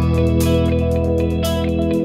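Instrumental background music, with a low note held steadily under it.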